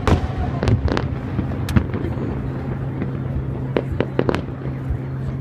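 Fireworks display: a series of sharp bangs and cracks at irregular intervals, the loudest right at the start, over a steady low hum.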